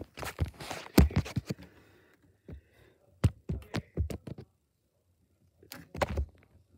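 Handling noise from a handheld camera being moved about: irregular clicks, knocks and rubs in groups, with a silent stretch of about a second past the middle.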